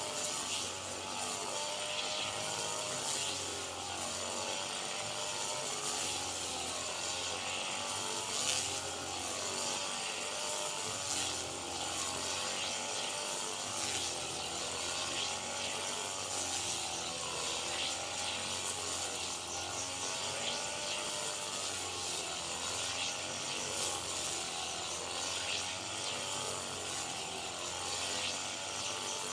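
A rice combine harvester running steadily, its engine note slowly rising and falling over a continuous mechanical rattle.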